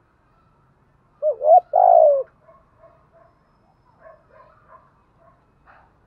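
Spotted dove cooing one loud phrase about a second in: two quick bending notes, then a longer coo that falls at its end. A few faint, softer notes follow.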